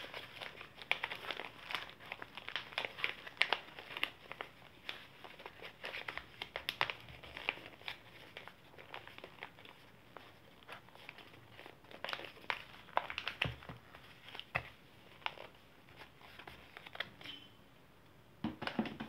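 Crinkling and crackling of a small white zip-lock packaging pouch being handled and opened by hand, in quick irregular crackles throughout.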